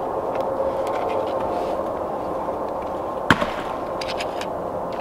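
A dry stick snapping with one sharp crack about three seconds in, among a few small clicks of twigs being handled over a steady background hiss.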